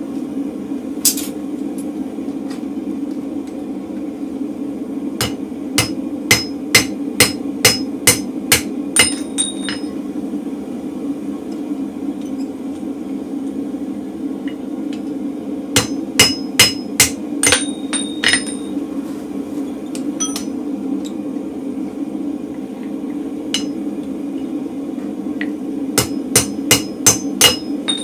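Hand hammer striking a drift through a hole punched in a hot mild-steel bar on an anvil, opening it out to 10 mm. Three runs of sharp, ringing blows come at about two a second, with a few single blows between, over a steady low hum.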